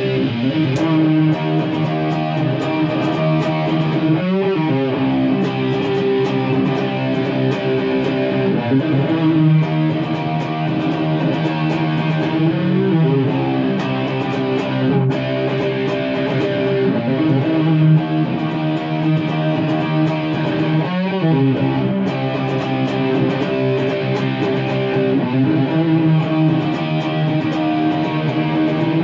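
Gibson Les Paul electric guitar playing a repeating rock riff, with a sliding figure coming round about every eight seconds.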